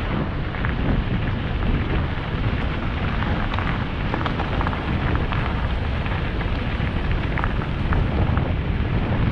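Wind buffeting the helmet-mounted camera's microphone on a fast mountain-bike descent, a steady low rumble, with tyres crunching over loose gravel and the bike rattling in scattered small clicks.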